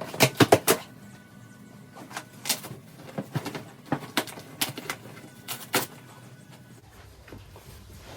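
Sharp clicks and knocks from handling a box and parts: a quick run of four about a second long at the start, then single ones every half second or so for the next few seconds.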